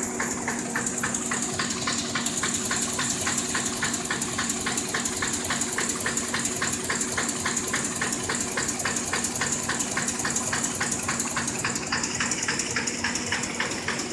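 Sheet-fed offset printing machine running: a fast, regular clicking of its sheet-feed and gripper mechanism over a steady hiss of air from the feeder's suction and blower system and a low motor hum.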